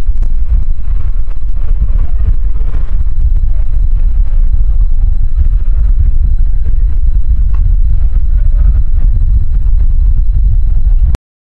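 Formula Offroad buggy's engine running at idle, loud and deep with a fast, even pulse; it cuts off abruptly near the end.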